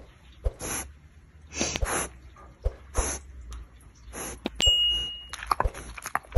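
A dog breathing noisily through its nose while asleep, short rasping breaths about once a second. Several sharp clicks, and a short high ding a little over four and a half seconds in.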